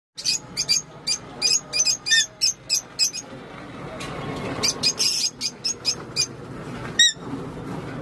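Alexandrine parakeet calling in quick runs of short, high chirps, about two to three a second. The calls pause briefly around the middle, and one louder, clearer call comes near the end.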